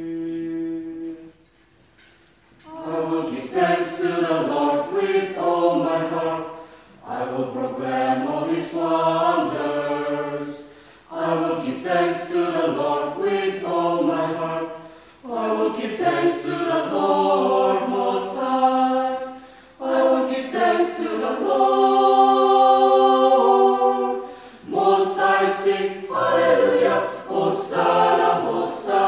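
Church choir singing unaccompanied in parts, in phrases with short breaks between them. A held note opens, then after a pause of about a second the singing begins.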